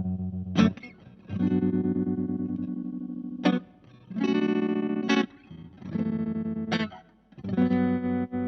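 Clean baritone electric guitar chords played through a Space Sounds Cosmic Tremolo pedal on its faster speed setting, about five chords struck and left to ring. The volume pulses quickly and evenly as each chord sustains.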